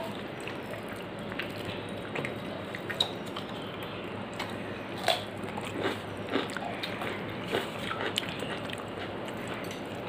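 Eating sounds from a person eating rice and curry by hand: chewing and mouth smacks, with scattered short clicks over a steady low background hum.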